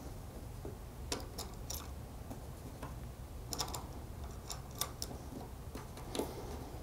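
Small metal washers and nuts clicking lightly as they are picked up off a table and fitted onto the ends of threaded rods, a handful of scattered sharp clicks.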